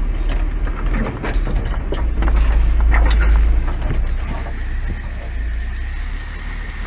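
Opel Frontera A Sport off-roader running slowly through dense brush, with knocks and rattles from the body over rough ground. A heavy low rumble swells about two seconds in and eases off after four seconds.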